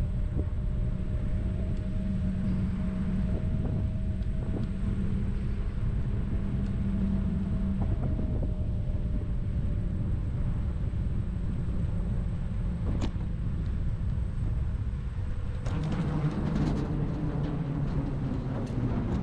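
A motor vehicle running with a steady low rumble. Near the end a louder, deeper tone joins it.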